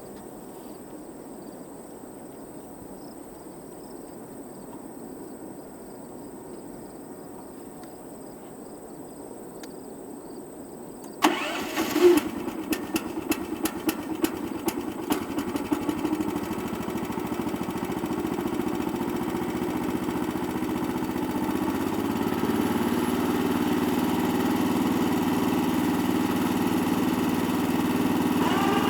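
The sawmill's 14 hp electric-start Kohler engine is started about eleven seconds in, after a stretch of only faint background sound. It catches with a few seconds of irregular sharp pops, then settles into a steady run that grows slightly louder near the end.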